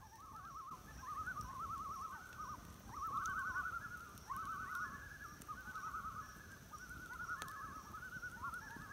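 Several common loons calling together, their quavering tremolo calls overlapping one another without a break. A couple of sharp pops from the campfire, one about three seconds in and one near the end.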